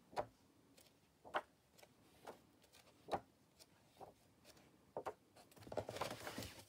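Pages of a large paperback book being turned one after another, each turn a short papery flick, about one a second. Near the end comes a longer, denser rustle of paper.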